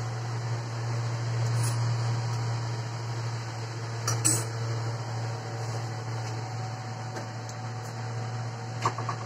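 A steady low hum with a hiss, broken by a sharp metal clink about four seconds in and a few light knocks near the end: cookware and utensils handled at a stove.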